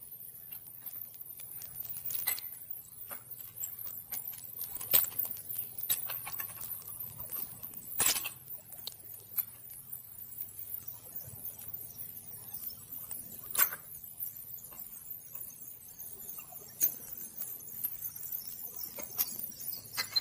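Sharp knocks and clinks, about six spread over twenty seconds, as steel tongs tip and tap a graphite ingot mould against firebrick to release a freshly cast aluminum ingot. A faint steady high hiss runs underneath.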